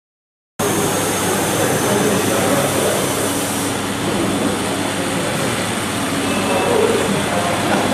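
Live-steam 16 mm scale garden railway locomotives running on the track, a steady hiss and rumble, with voices in the background. The sound starts abruptly just after the start, and its highest, sharpest hiss stops a little over three seconds in.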